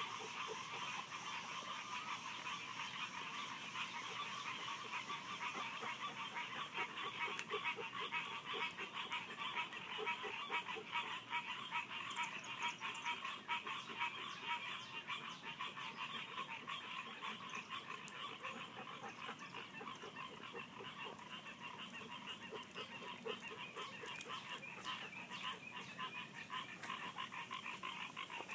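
A chorus of many frogs calling at once, a dense, continuous trilling of rapid pulses.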